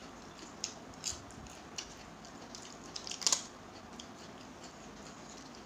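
Eating sounds close to the microphone: scattered soft clicks and crunches from fingers mixing rice and fried noodles on a plate, and chewing, with a louder cluster about three seconds in.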